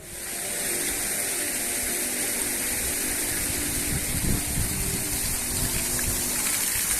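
Sea surf washing onto the beach: a steady rushing noise that comes up sharply at the start and holds even.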